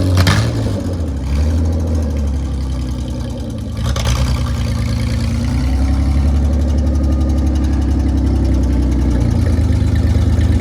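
Holden VS Commodore's engine running as the lifted car is driven, its note swinging a little at first and then settling steady. There is a short sharp noise about four seconds in.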